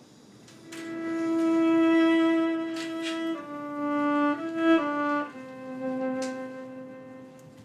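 Solo violin played slowly with the bow. A long held note opens the phrase, then shorter notes step down and back up, and the phrase settles on a lower held note that fades away near the end.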